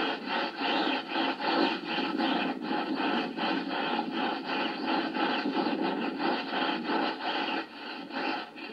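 Long-handled deck brush scrubbing a ship's deck in quick, repeated back-and-forth strokes.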